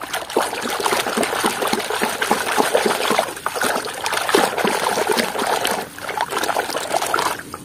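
Water sloshing and splashing in a plastic tub as a hand swishes a muddy toy tractor through it, washing off the mud, with brief lulls about three and six seconds in.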